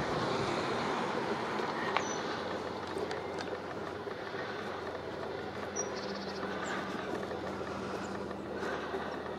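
Steady rumble and hiss of outdoor background noise, with a few faint, brief high chirps.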